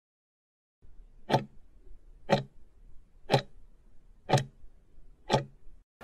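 Clock-tick sound effect of a countdown timer: five sharp ticks, one a second, marking the last seconds of the countdown.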